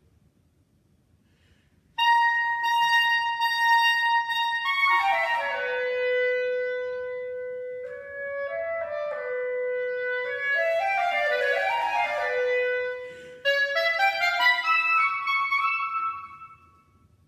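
Solo unaccompanied clarinet playing an orchestral excerpt. It enters about two seconds in on a long held high note, runs quickly down to a held lower note, and moves through more runs. After a short break near the end it climbs again and stops.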